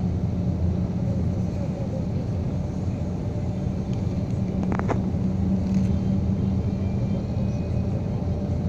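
Steady engine and tyre drone of a car driving along the highway, heard from inside the car. There is a short click about halfway through.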